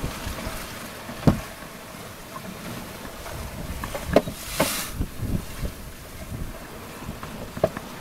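Wind and water noise aboard a small sailboat under way at sea, broken by several sharp knocks. The loudest knocks come about a second in and about four seconds in, the second one with a short hissing rush.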